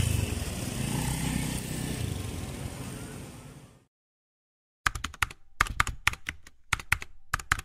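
Street noise with a low rumble fades out over the first few seconds. After about a second of silence comes a rapid, uneven run of key clicks: a typing sound effect.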